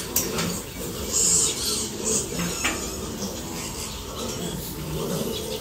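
Many piglets grunting together in short, low, overlapping grunts, with scattered brief higher squeaks and the scuffling of trotters on wet concrete.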